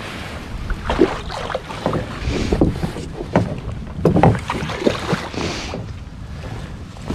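A hooked fish thrashing and splashing at the surface beside a kayak, with irregular sharp knocks and splashes, the loudest around a second in and again about four seconds in.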